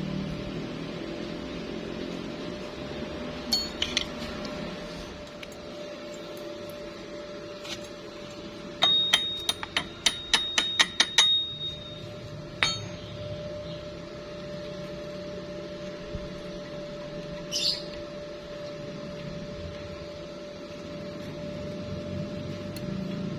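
Metal tapped or struck about a dozen times in quick succession, each strike ringing, with a few single knocks before and after, over a steady hum.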